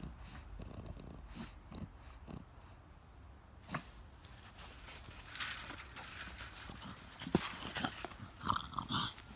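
French bulldog sniffing and snuffling close by, with a few sharp clicks and, near the end, a few short high chirps.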